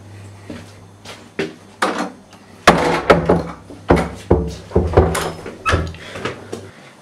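An irregular series of sharp knocks and thumps, a dozen or so, loudest around three seconds in.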